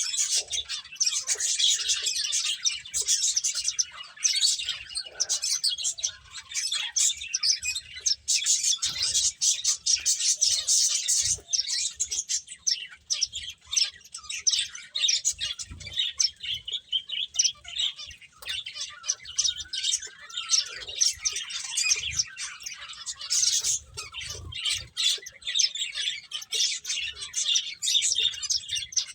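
Pet finches chirping continuously: many short, high-pitched calls overlapping in a dense chatter.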